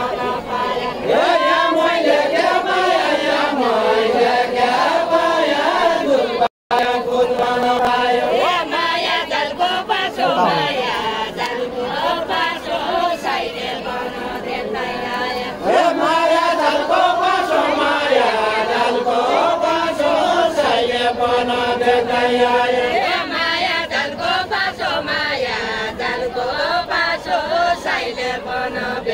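A group of voices singing a Deuda folk song unaccompanied, in a chanted, repeating melody. The audio cuts out completely for a moment about six and a half seconds in.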